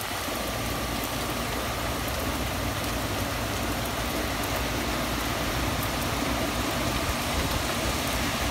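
Heavy rain falling in a steady downpour, with a faint steady hum beneath it.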